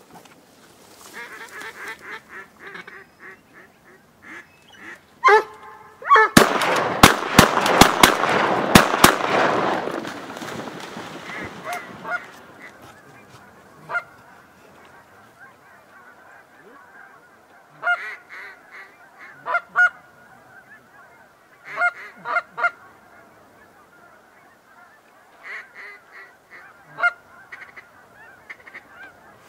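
Geese honking: scattered calls, then about six seconds in a loud burst of rapid, overlapping honks lasting about four seconds, followed by short clusters of honks through the rest.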